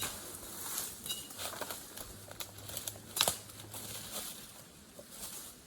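Scattered crunching and rustling, irregular and uneven, of footsteps through dry brush and leaves; the sharpest crunch comes about three seconds in.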